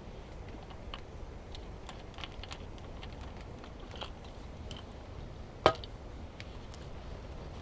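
Campfire of dry pine crackling, with scattered small pops and one loud, sharp pop a little over halfway through.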